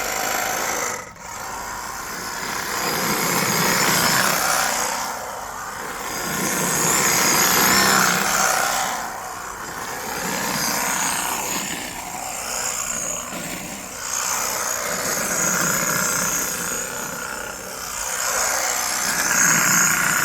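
Battery-operated brush cutter running, a high motor whine over a steady hiss, its loudness swelling and easing every few seconds.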